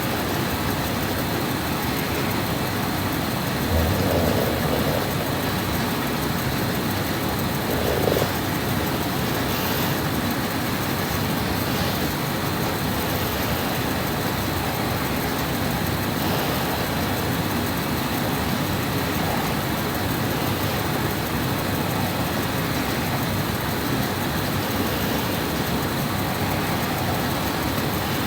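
Steady, even hiss of room noise, with two brief low sounds about four and eight seconds in.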